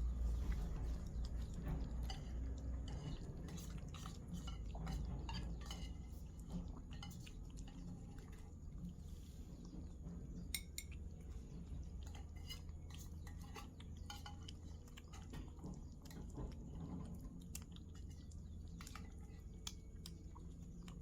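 A cat eating from a dish: many small, irregular clicks and clinks of food against the bowl. A low rumble sits underneath, strongest in the first seconds.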